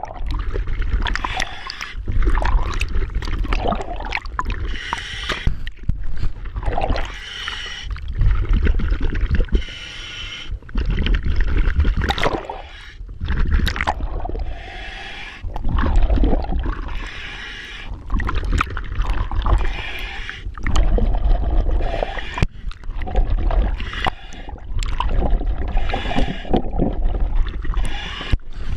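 Scuba diver breathing through an EXO-26 full-face mask's demand regulator: hissing inhalations alternate with rumbling bursts of exhaust bubbles, one breath every few seconds.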